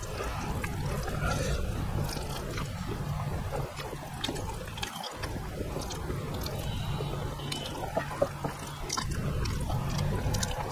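Close-miked eating sounds: a man chewing a mouthful of rice, with many small wet mouth clicks, while his fingers mix rice on the plate.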